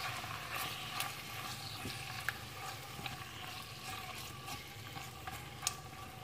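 Raw chicken strips frying in oil and garlic in a pan, sizzling gently as they are stirred with a spatula, with a few sharp clicks of the spatula against the pan, the loudest near the end.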